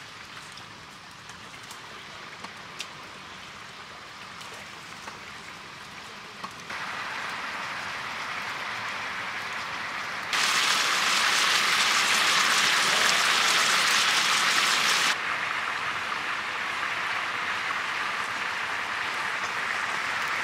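A wood fire burns under a large pan with a few faint crackles, then water boils hard around pieces of stingray in a big aluminium pan, a steady bubbling hiss. The bubbling gets much louder about ten seconds in and drops back about five seconds later.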